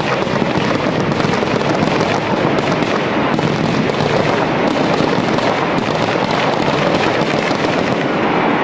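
Firecrackers packed inside a burning Ravan effigy going off in a rapid, unbroken crackle of many small bangs.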